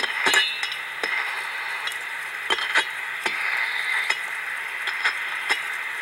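HP 4905A ultrasonic translator playing the contact probe's down-converted ultrasound: a steady hiss with scattered scratchy clicks as the probe tip is moved along the copper coil joints of a nitrogen-charged AC coil being checked for leaks.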